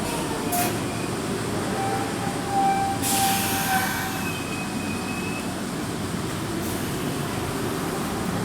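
Nankai 2000 series electric train running, a steady rumble with a few brief thin tones and a short rush of hiss about three seconds in.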